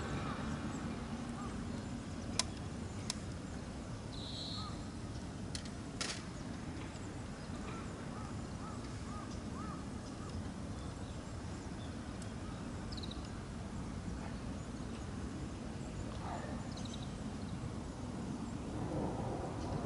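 Outdoor pond-side ambience: a steady low rumble with scattered bird calls, including a run of short repeated chirps a third of the way in. A few sharp clicks sound in the first six seconds.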